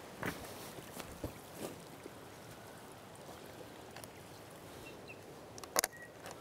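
Footsteps on loose stones over a steady stream-like rush, with a few soft knocks early on, then a sharp cluster of clicks near the end as a trail camera on a tree trunk is handled.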